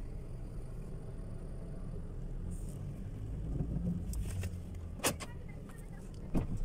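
Low, steady rumble of an idling car, with two short, sharp knocks just over a second apart near the end.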